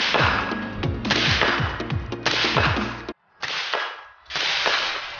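Suppressed AR-15 rifle firing five shots about a second apart, each followed by a trailing echo. The sound cuts out briefly just past halfway.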